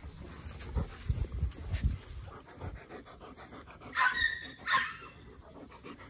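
Dogs panting and snuffling close to the microphone, with low bumps in the first couple of seconds, then two short, high-pitched dog cries about four and nearly five seconds in.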